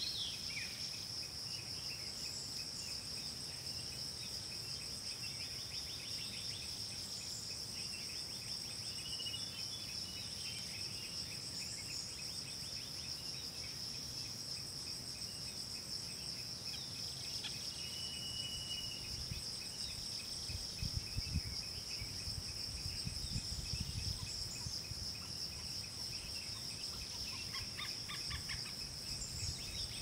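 Steady high-pitched insect chorus, with faint bird chirps now and then. A few low rumbles come about two-thirds of the way through.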